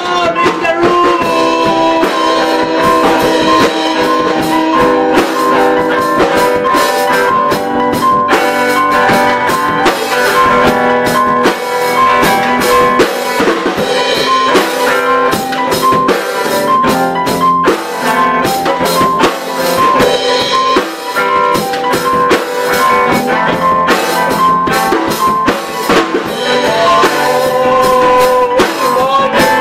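A small band playing live: guitar over a drum kit, with frequent drum hits.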